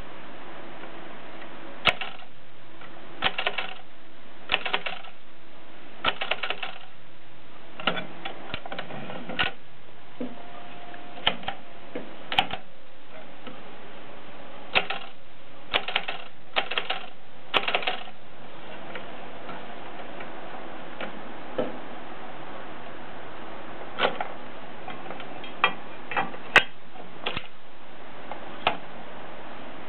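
Mignon index typewriter in use: irregular clusters of sharp mechanical clicks and clacks, with pauses between groups, over a steady hiss.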